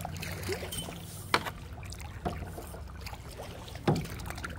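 Kayak paddling: the paddle dips and splashes in the water, with two sharper strokes about a second and a half in and near the end, over a steady low rumble.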